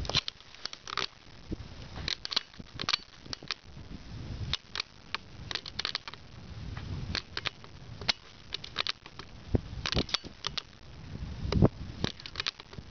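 Wind buffeting the microphone in low rumbling gusts, with irregular crackling clicks scattered throughout.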